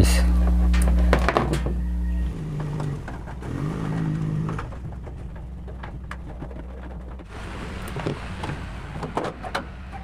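Scattered clicks and knocks of a microwave oven's sheet-metal casing being handled as its outer cover is taken off, over a low steady hum.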